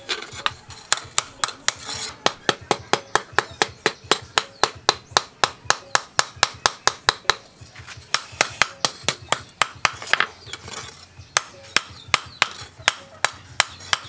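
Hand hammer striking a red-hot steel cleaver blade, forged from a chainsaw bar, on a small steel post anvil: sharp ringing blows at about four a second, with a couple of short breaks.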